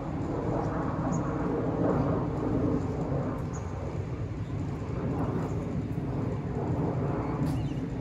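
Steady low outdoor background rumble with no clear racket-on-ball strikes standing out.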